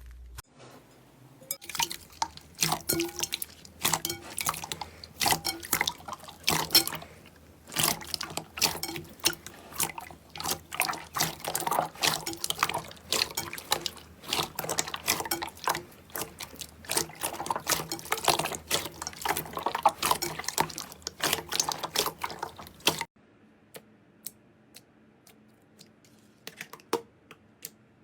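Slime being squished and pressed by hand: a dense run of clicks and pops that stops abruptly about 23 seconds in. A few sparse, faint clicks follow.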